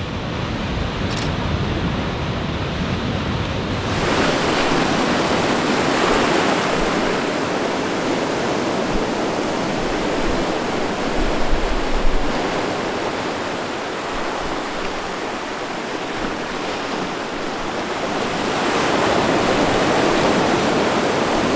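Sea surf breaking and washing up a beach as a steady hiss that swells about 6 s in and again near the end, with wind rumbling on the microphone around the middle.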